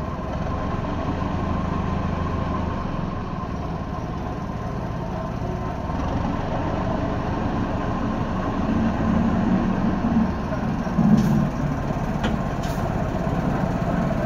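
Small narrow-gauge locomotive's engine running steadily as the locomotive creeps closer onto the track, growing a little louder, with a couple of short metallic clicks near the end.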